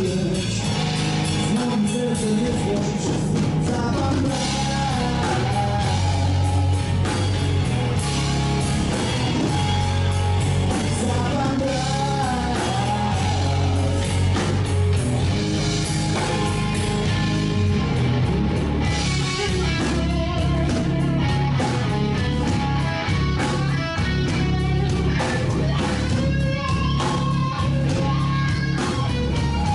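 Blues-rock band playing live: electric guitar, bass guitar and drum kit, with a man singing over them.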